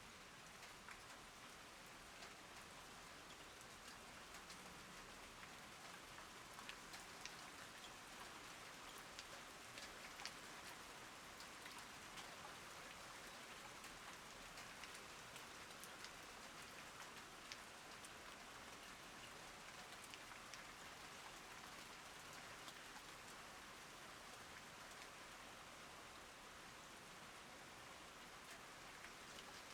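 Soft, steady rain falling, with scattered sharper ticks of individual drops striking close by.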